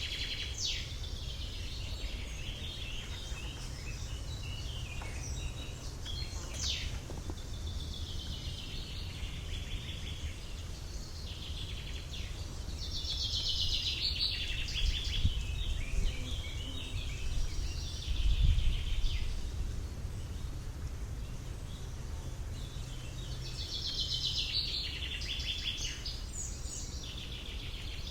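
Countryside ambience: birds singing and chirping, with one bright trilling phrase coming back about every eleven seconds. Under it runs a steady low rumble that swells louder a little past the middle.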